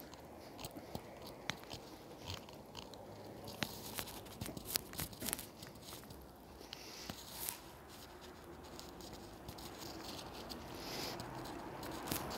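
Footsteps on a paved sidewalk, heard as faint, irregular small clicks and scuffs. Near the end a car's tyre and engine noise grows louder as it approaches.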